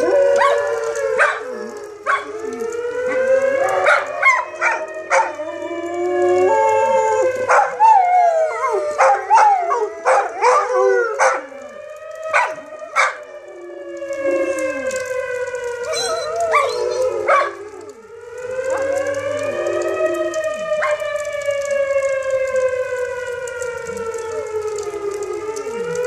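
Outdoor civil defense warning siren being tested, its pitch slowly rising and falling about every seven or eight seconds. Dogs howl and bark along with it for the first two-thirds, and after that the siren is mostly heard alone.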